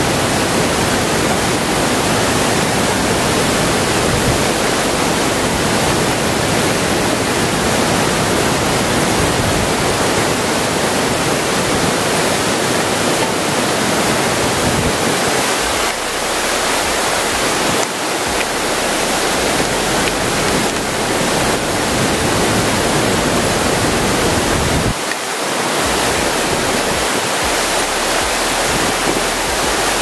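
Waterfall pouring onto rocks: a loud, steady rush of falling water.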